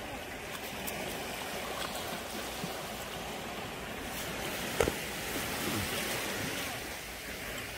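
Sea waves washing on the shore, a steady rushing noise, with one sharp click a little under five seconds in.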